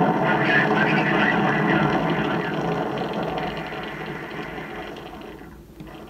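Rocket launch roar from a 1969 recording on a vinyl record, a dense rumble that fades steadily over about five seconds.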